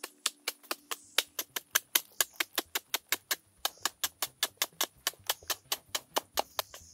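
A metal-bladed digging tool chopping into packed termite-mound earth in quick, even strikes, about five a second. A steady high insect drone runs underneath.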